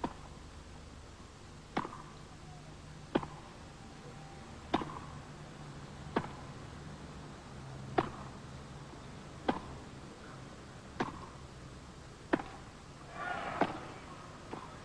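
Tennis ball struck back and forth with racquets in a long rally, a sharp pock about every one and a half seconds, ten hits in all. Near the end a short burst of crowd noise rises.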